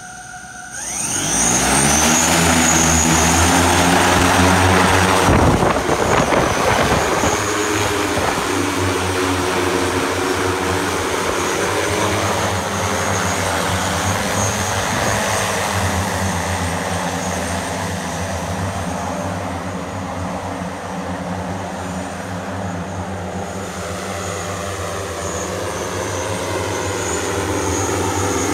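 Electric multirotor personal aircraft's many propellers spinning up about a second in, rising in pitch, then a loud, steady, dense propeller buzz as it lifts off and flies.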